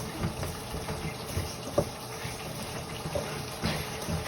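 Hands rubbing seasoning into wet raw chicken pieces in a pan: wet handling sounds with small irregular knocks, one sharper knock a little under two seconds in.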